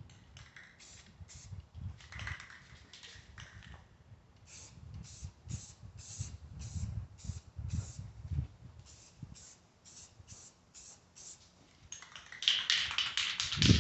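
Aerosol paint can being shaken, its mixing ball rattling in a steady rhythm of about two rattles a second, faster and louder near the end. Wind rumbles on the microphone underneath.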